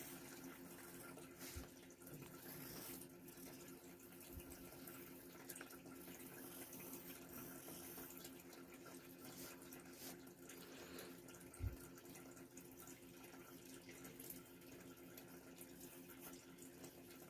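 Faint pencil scratching on sketchbook paper over a steady low hum, with a single soft thump about twelve seconds in.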